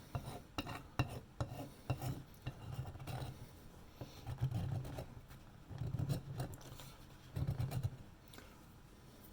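Hand file scraping the edge of a bakelite espresso-machine boiler cap in short, irregular groups of strokes, with a few light knocks, stopping about eight seconds in.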